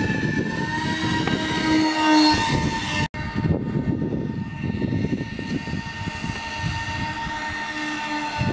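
Electric motor and propeller of a homemade RC plane whining steadily in flight, its pitch rising slightly in the first two seconds, over wind noise on the microphone. The sound cuts out for an instant about three seconds in.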